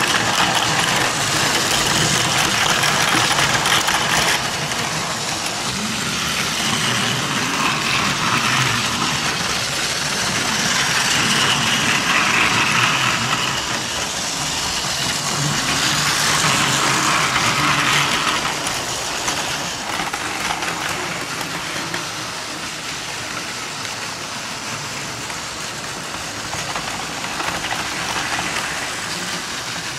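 Battery-powered Plarail toy trains running on plastic track: small motors whirring and wheels rattling over the rail joints. The sound swells louder several times as a train passes close, then settles lower.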